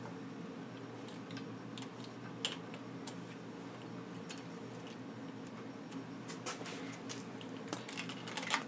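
Scattered light clicks and taps of hands handling and adjusting bicycle brake levers, cables and a handlebar-mounted display, more frequent near the end, over a steady low hum.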